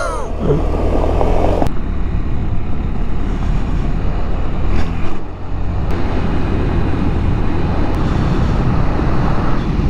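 KTM 390 Adventure's single-cylinder engine running steadily under way on a loose gravel road, with tyre noise and wind rush. The level dips briefly a little after five seconds in.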